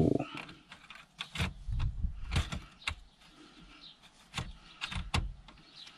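Metal radio removal keys clicking into the release slots of a Ford 6000CD car radio and clinking against each other: a string of sharp, irregular clicks and knocks.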